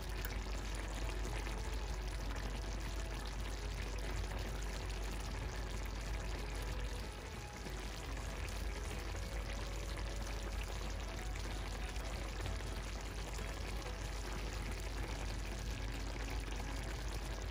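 Chicken-and-cashew sauce, thickened with cornflour, simmering in a stainless steel frying pan: a steady bubbling hiss over a low steady hum.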